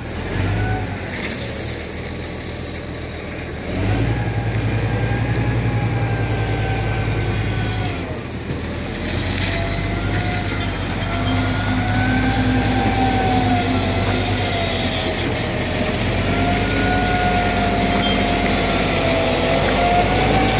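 A heavy machine's engine running steadily, growing louder about four seconds in, with a wavering high-pitched squeal over it that rises and falls in pitch and gets stronger in the second half.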